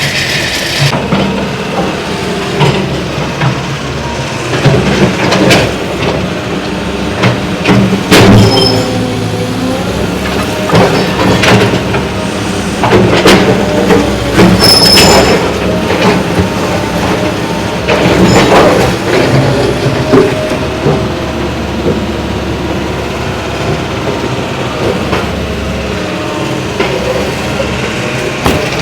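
Demolition excavator's engine running under load, with metal squealing from its tracks and boom and repeated knocks and crashes of brick and concrete debris as it breaks down a masonry step. The loudest crashes come in clusters about a third, half and two-thirds of the way through.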